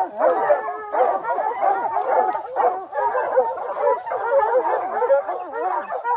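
A pack of bear hounds baying and barking together at the foot of a tree, a dense overlapping chorus: the hounds have the bear treed.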